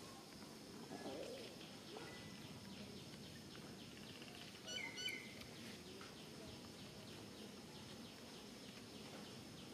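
Faint steady forest ambience with a bird chirping twice in quick succession about five seconds in.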